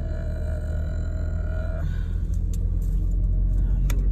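Low, steady rumble of a car driving slowly, heard from inside the cabin. A steady high tone holds for the first two seconds or so and cuts off abruptly, and a few faint clicks follow.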